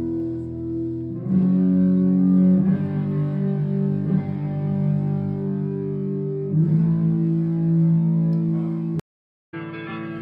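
Electric guitar playing held, ringing chords, a new chord struck every second or few. About nine seconds in the sound cuts off abruptly for half a second, then a brighter, chimier guitar part comes in.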